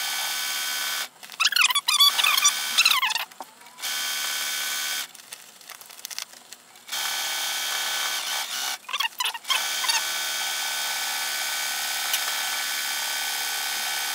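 Electric sewing machine stitching appliqué, its motor whining steadily in runs that stop and restart several times as the fabric is pivoted around curves. Short squeaky sounds come in two of the pauses, loudest a second or two in.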